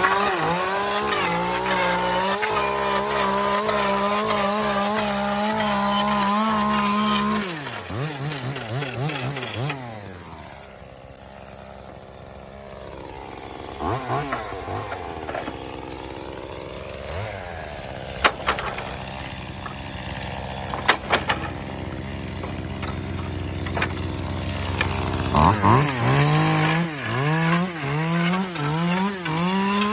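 Echo CS-2511T small two-stroke top-handle chainsaw held at full throttle, then dropping back to idle with a few sharp knocks, then revved up again near the end with the engine pitch rising and falling, as when cutting through wood.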